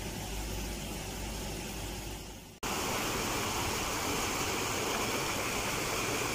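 Steady rushing background noise with no distinct events. About two and a half seconds in it cuts out abruptly and comes back louder and brighter.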